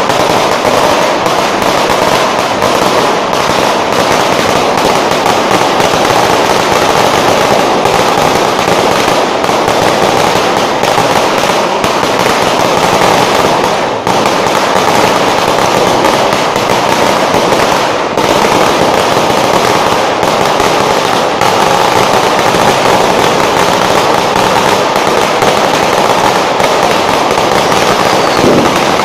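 Long string of firecrackers going off on the street, a dense, unbroken rattle of rapid small bangs with brief dips about halfway through and again a few seconds later.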